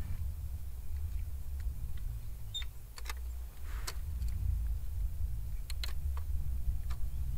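A steady low rumble, with a dozen or so light, sharp clicks and taps from hands handling and setting a jaw jacker ice-fishing rig.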